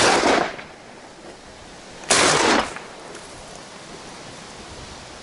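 Two shotgun shots about two seconds apart, each a sharp report that dies away within about half a second.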